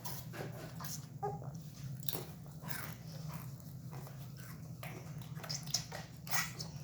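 Chewing and crunching of snack food close to the microphone: scattered short crackly clicks over a steady low hum.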